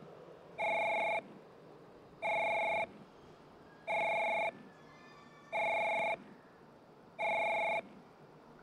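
Electronic train-approach warning tone of a JR West station platform, sounding five times at even intervals of about a second and a half. Each sounding is a steady electronic tone of about half a second, and it signals that a train is arriving at the platform.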